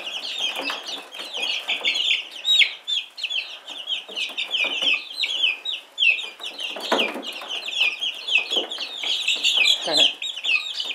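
A batch of baby chicks peeping nonstop, many short, high chirps overlapping, with a few soft knocks beneath them.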